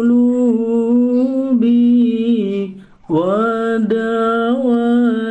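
A solo voice slowly singing an Arabic sholawat, holding long drawn-out notes. It breaks off briefly about three seconds in, then resumes.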